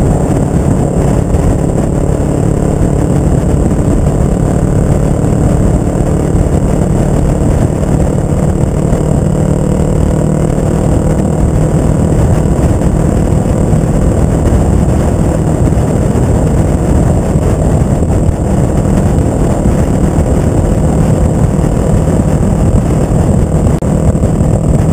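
Kawasaki ER-5's parallel-twin engine running steadily and loud through a short Delkevic Mini 8-inch slip-on exhaust while the motorcycle is ridden along.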